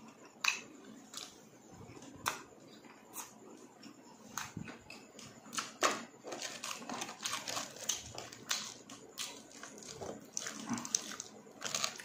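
Close-miked chewing of crispy chicharon bulaklak (deep-fried pork mesentery) with rice: scattered sharp crunches at first, then denser crackly chewing from about halfway.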